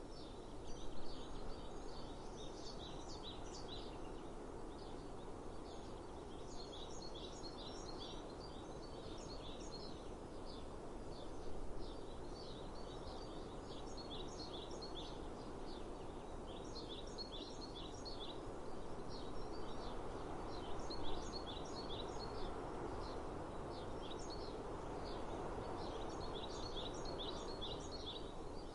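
Songbirds singing in repeated bouts of rapid, high chirping notes every few seconds, over a steady outdoor background hiss.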